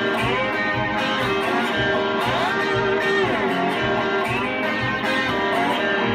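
Instrumental song break: a lead guitar playing gliding, bent notes over strummed guitar and a steady beat.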